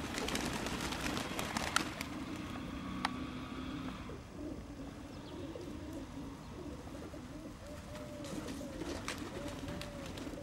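A flock of domestic pigeons cooing, a low overlapping murmur of many birds with repeated short coos.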